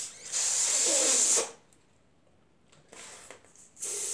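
Breath hissing through the neck of a small water balloon as it is blown up, in two loud bursts of about a second each: the first about half a second in, the second near the end.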